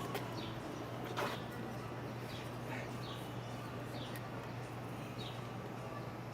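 A small bird chirping repeatedly: short, high, falling chirps about once a second, over a steady low hum, with one sharp click about a second in.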